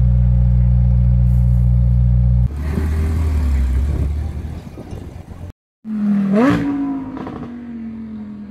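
A McLaren Senna's twin-turbo V8 idling with a deep, steady note. About two and a half seconds in, it cuts to a noisier mix of engine sound that fades away. After a brief dropout, another engine blips sharply, then settles into a drone that slowly falls in pitch.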